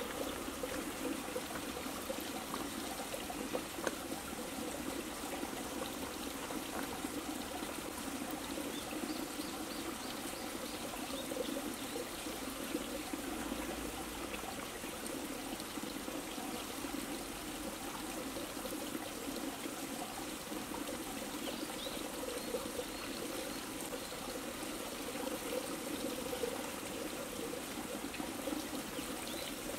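Steady sound of running water, trickling and flowing without a break.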